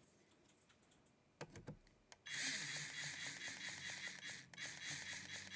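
Protective plastic film being peeled off an NVMe thermal pad: a dense crackle of rapid tiny ticks that starts about two seconds in, after a couple of faint clicks, and breaks off briefly in the middle.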